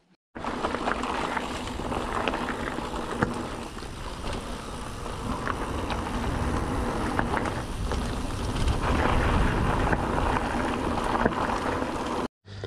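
Mountain bike rolling over a rough trail: steady tyre and wind noise with frequent small knocks and rattles. It starts abruptly just after the start and cuts off just before the end.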